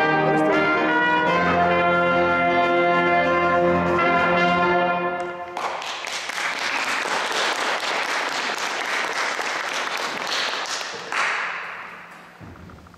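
A band's number ends on a held chord that stops about five and a half seconds in. Audience applause follows, swelling briefly near the end before dying away.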